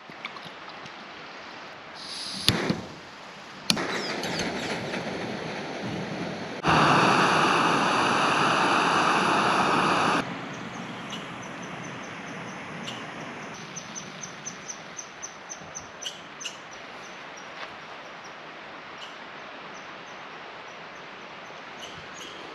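Outdoor ambience at a lakeside camp: a steady rushing noise that jumps much louder for about three seconds near the middle, then settles, with a small bird chirping in short, high, repeated notes.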